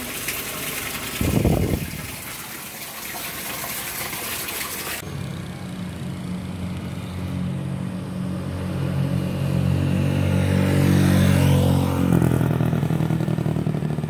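Road traffic: a motor vehicle's engine hum builds and passes close by about eleven seconds in. Before it, a few seconds of steady hiss with a short thump near the start.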